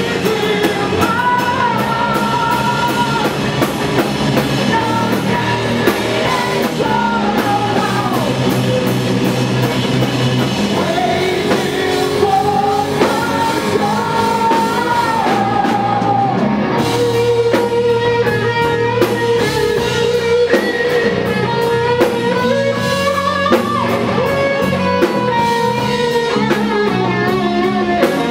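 Live power metal band playing: a female lead singer sings long held notes over electric guitar and a drum kit.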